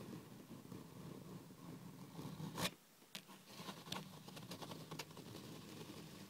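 Long fingernails and fingertips tapping and scratching quickly on a hard tabletop: a soft, continuous patter with a sharp click about two and a half seconds in and scattered crisper taps after it.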